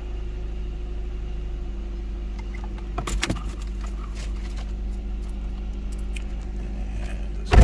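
Car engine idling with a steady low hum, keys rattling and clicking about three seconds in, then one loud thump near the end.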